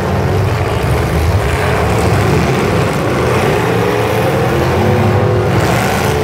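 Engines of several full-size demolition derby cars running loud and revving together, their pitch rising and falling as the cars drive and push against one another.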